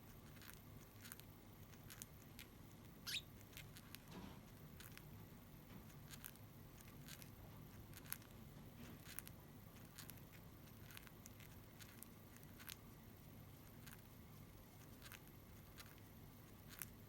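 Pet budgerigars making small faint scattered clicks and taps, with one brief high wavering squeak about three seconds in.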